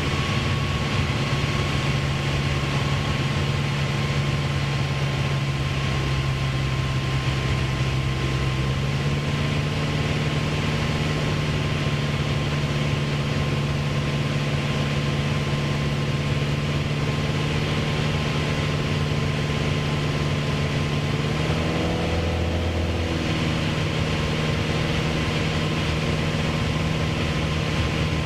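Light aircraft's piston engine and propeller droning steadily in the cockpit on final approach to land, with a steady hiss of airflow. Its pitch steps up slightly about nine seconds in, then wavers and dips briefly a little past twenty seconds before settling again.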